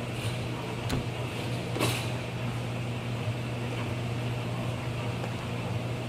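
Commercial washers and dryers running: a steady low machine hum under an even hiss, with light clicks about one and two seconds in.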